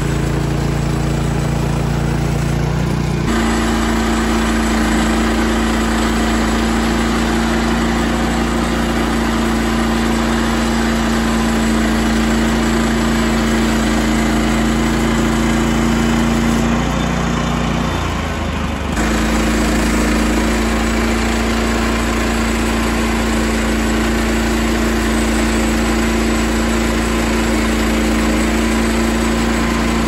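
Petrol engine of a Frontier OS27 portable band sawmill running steadily under a constant throttle, driving the band blade. Its note changes abruptly about three seconds in and wavers briefly around eighteen seconds.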